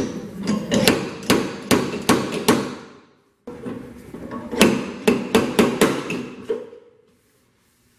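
Slide hammer's sliding weight repeatedly slamming against its end stop while its tip grips studs welded into a dented steel body panel, pulling the dent out. Sharp metallic knocks about two to three a second, in two runs with a short break about three seconds in.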